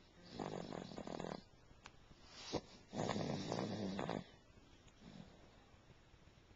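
Two snores, each about a second long and a couple of seconds apart, with a brief click between them.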